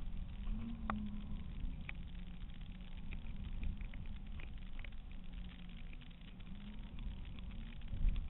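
Wind buffeting a GoPro camera in its housing on a flying kite: a steady low rumble with a faint wavering hum and a few light ticks.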